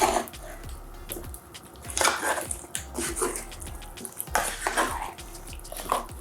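A spoon stirring sweet potato cubes through a thick sauce in a cooking pot, with irregular scrapes and clinks against the pot.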